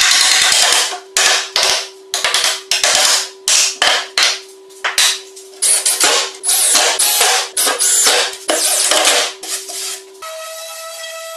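Hammer taps and a cordless drill driving wood screws into a pine shelf board, in a rapid string of short bursts. About ten seconds in, an electric sander starts and runs steadily.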